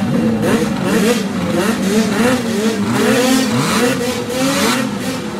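Several racing snowmobile engines revving at once, their pitch rising and falling over and over as the throttles are blipped.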